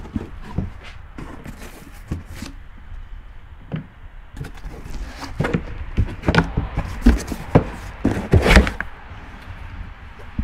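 A cardboard box of brake rotors being opened and handled: an irregular run of knocks, scrapes and thumps, loudest about eight and a half seconds in.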